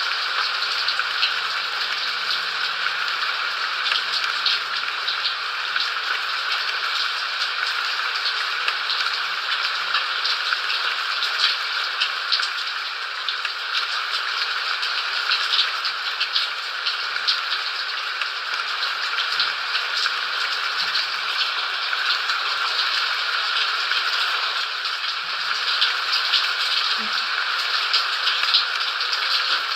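Steady rain: a dense, even hiss peppered with the sharp ticks of individual drops striking.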